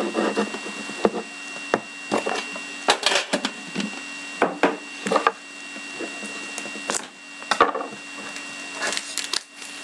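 Plastic shrink wrap on a sealed trading-card box crinkling and crackling as the box is handled and the wrap is picked open, with scattered sharp crackles and light knocks, over a steady low hum.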